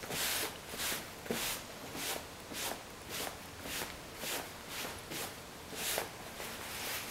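Gloved hand rubbing upholstery fabric stretched over a foam seat cushion, in repeated short strokes about two a second.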